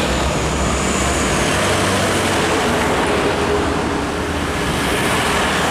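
Busy highway traffic passing close by: diesel trucks and motorcycles, a steady drone of engines and tyre noise on the road.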